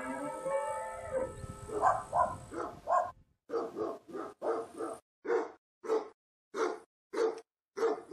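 A church bell's ringing dies away in the first second or so, then a dog barks over and over: a quick run of barks at first, then about one bark every two-thirds of a second.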